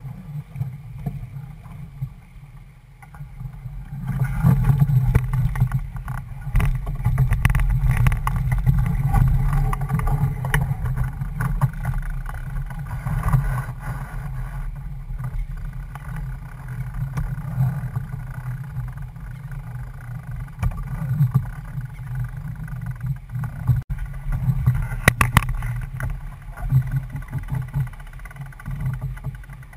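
Wind buffeting the microphone and water rushing and splashing along the hull of a C&C 31 sailboat heeling under sail in a chop. The rush of water grows much louder about four seconds in, with scattered splashes and knocks.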